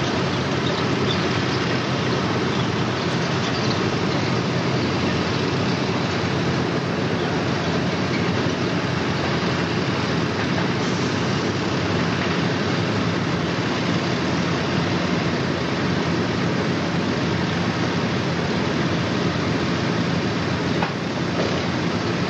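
Tracked armoured vehicles running in a column: the steady noise of their diesel engines and tracks.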